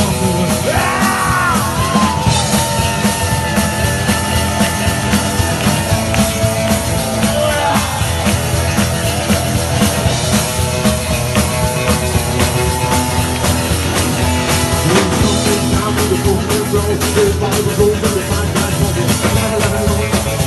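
Rockabilly band playing live: electric guitar, acoustic guitar, upright double bass and drum kit, with bending lead notes about a second in.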